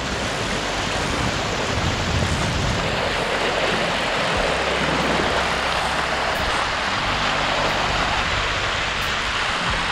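Rushing current of a small river, a steady even noise.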